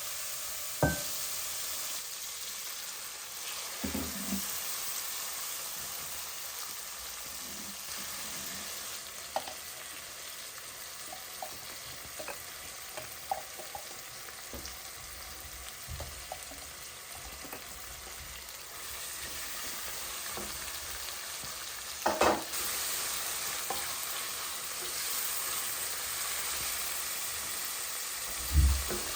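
Food frying and sizzling in a pan, a steady hiss with light ticks of spattering. It is broken by a few knocks, presumably of a utensil against the pan as it is stirred, the loudest about 22 seconds in and near the end.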